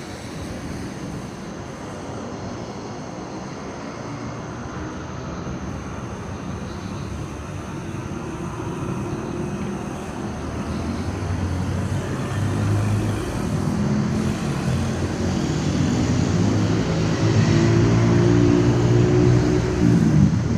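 Steady rumble of motor traffic, with an engine growing louder through the second half.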